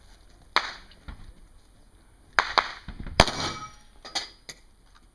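Pistol fired in a string during a practical shooting course of fire: about six sharp shots spaced unevenly, the loudest a little past three seconds in.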